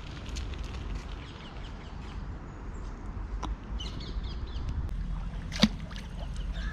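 Hooked perch splashing and thrashing at the water's surface on a short line, with one sharp loud splash about five and a half seconds in.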